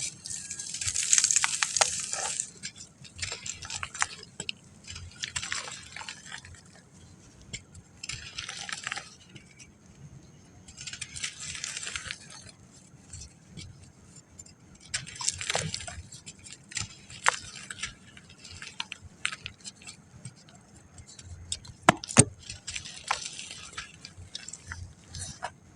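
Dry packed sand being crumbled, crisp crunching and crackling with trickling grains in bursts of about a second every few seconds, the loudest at the start. A pair of sharp clicks comes near the end.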